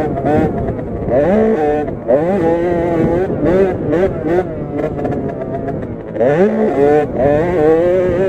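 A 50cc two-stroke minibike engine (KTM 50 SX) revving hard under racing throttle, its pitch climbing and falling back again and again as the throttle opens and closes over the track.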